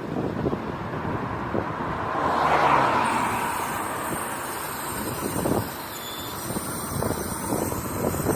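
A moving 2016 Kia Rio III with road noise and repeated irregular creaks and knocks from its left wheel, a squeak the owner suspects comes from a wheel bearing. A broad swell of noise peaks about two and a half seconds in.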